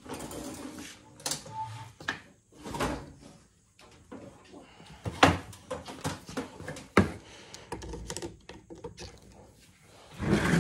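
Handling sounds while an old GM starter motor is wired to a battery charger: several separate sharp clicks and knocks of metal parts and clip leads, the loudest about five and seven seconds in. The starter is not yet spinning.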